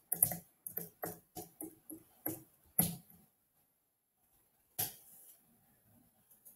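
Computer keyboard typing: about a dozen quick keystrokes over three seconds as a password is entered, then a single louder click near five seconds in.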